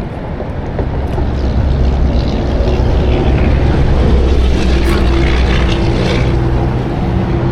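Motorboat engine running close by, building up over the first couple of seconds to a steady low drone.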